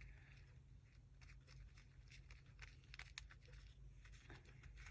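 Near silence, with faint scattered ticks and light rustles of paper and craft materials being handled.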